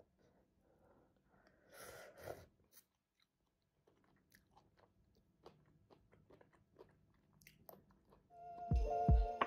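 A person chewing food, with soft crunches and scattered small clicks and a brief louder noise about two seconds in. Music with a low beat comes in near the end.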